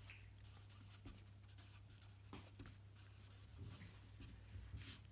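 Marker pen writing a word on paper: faint, quick scratching strokes, one a little louder near the end, over a steady low hum.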